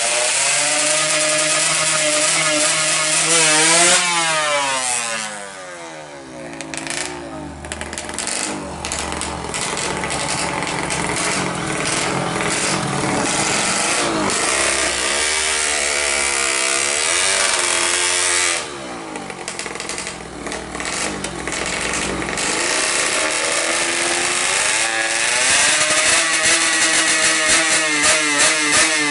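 Yamaha F1ZR 130 cc two-stroke engine with a racing expansion-chamber exhaust, revved hard up and down several times and dropping back to a lower, steadier running speed between the blips. Near the end the revs climb again in quick stabs.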